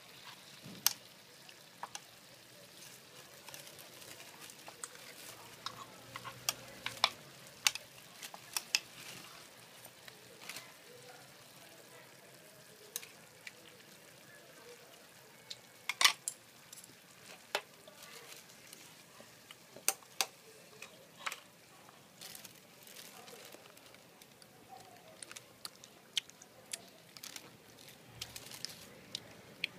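Beef and onion slices frying in hot oil in a pan: a steady sizzle with frequent sharp pops and spatters, one loud crack about halfway through.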